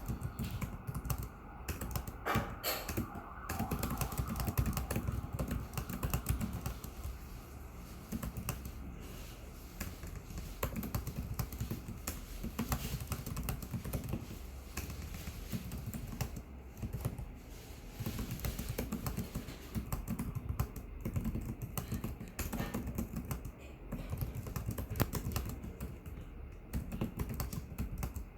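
Fast, irregular typing on a Lenovo IdeaPad 330S laptop keyboard, a steady run of light key clicks with short pauses between bursts.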